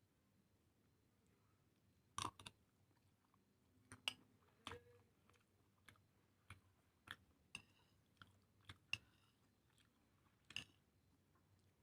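Close-miked eating: a person chewing and biting clams and seblak, with about a dozen sharp, irregular clicks and crunches between quiet gaps.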